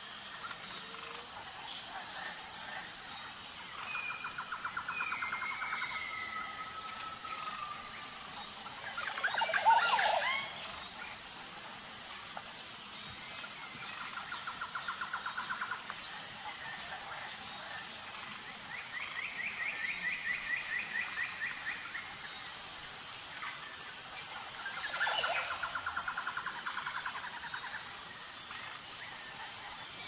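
Rainforest ambience: a steady high insect buzz pulsing evenly, with birds calling over it in rapid trills. A louder call with sweeping pitch rings out about ten seconds in, the loudest moment, and another comes about twenty-five seconds in.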